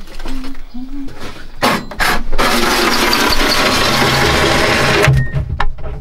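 A handheld power tool runs steadily for about three seconds, starting a little over two seconds in and cutting off suddenly near the end, after a few sharp knocks.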